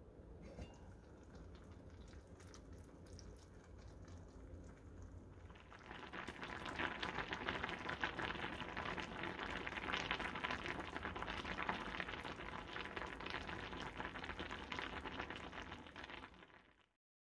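Food bubbling and crackling in a cast-iron pot, faint at first and then much louder from about five seconds in, cutting off abruptly just before the end.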